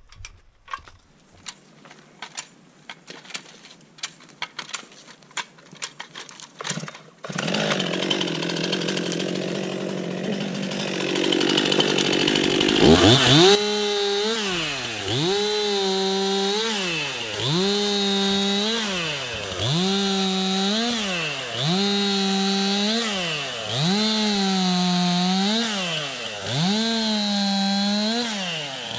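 A few light knocks and clicks, then about seven seconds in a loud rushing noise starts suddenly. From about thirteen seconds a chainsaw runs at high revs, its pitch dipping and climbing back again about every two seconds.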